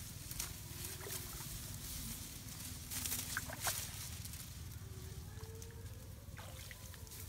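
Hands sloshing and splashing in shallow muddy water among brush while feeling for fish, with scattered short clicks and rustles of leaves and stems.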